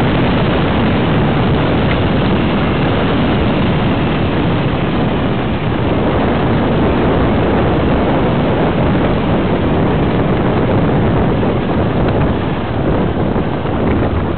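Wind buffeting the microphone of a camera carried by a skier moving downhill at speed: a loud, steady rush of noise that eases slightly near the end.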